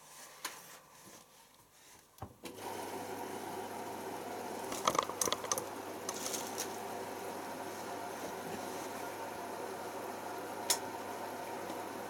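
Beko WMA510 washing machine filling for its pre-wash: a steady hum with water rushing in, starting about two and a half seconds in. A cluster of clicks and knocks comes about halfway through, and a single sharp click near the end.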